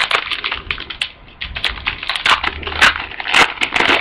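Wrapper of a football trading-card pack crinkling as it is handled and opened, a quick run of irregular crackles.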